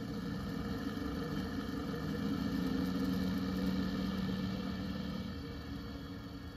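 Electronic sound unit in a scale model aircraft playing a recorded piston aero-engine sound through its small speaker. The engine drone is steady, grows louder toward the middle and eases off near the end.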